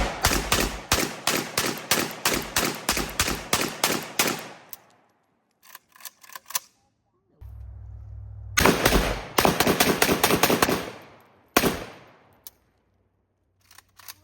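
AK-pattern rifle fired fast in semi-automatic, about four shots a second for some four seconds. After a pause of a few seconds comes a second quick string of shots, then one more shot about a second later.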